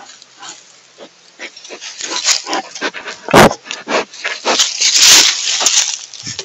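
Black bear sniffing and snuffling right at the trail camera's microphone in a rapid run of short breathy sniffs. There is a sharp knock against the camera about three and a half seconds in, and a louder noisy stretch around five seconds in.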